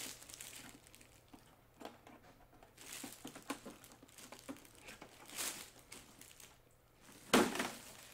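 Clear plastic bag crinkling and rustling in irregular bursts as it is worked loose and pulled off a large radio-controlled truck, with the loudest crackle near the end.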